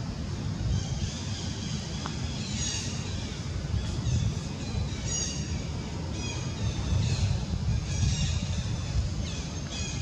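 Short, high bird calls repeated every second or two, some gliding upward, over a steady low rumble.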